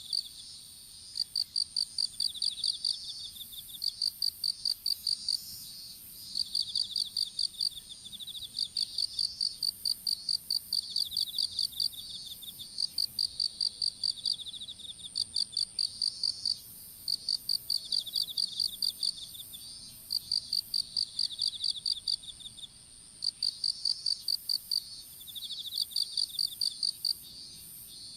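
Several crickets singing together: one chirps in rapid trains lasting about a second, repeated every couple of seconds, over another insect's unbroken high trill.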